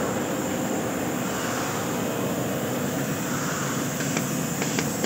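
Steady machinery noise from a glue-jetting system under test, with a run of sharp clicks from about four seconds in as the glue-gun valves fire.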